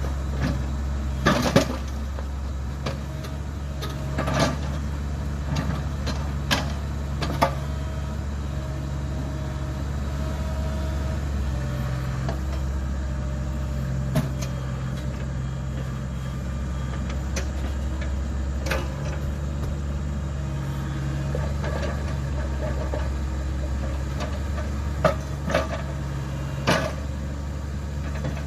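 Cat 304E mini excavator's diesel engine running under hydraulic load, its pitch rising and falling as the arm and bucket work. Now and then come sharp clunks and knocks as the bucket breaks up and shifts slabs of concrete sidewalk.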